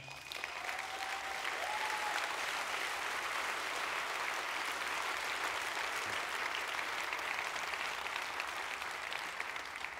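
Audience applauding throughout, a dense even clapping from a large seated crowd in a hall, dying down near the end.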